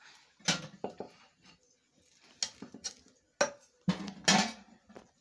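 Kitchen utensils knocking and clattering against cookware: a series of sharp, irregular knocks, the loudest near the end.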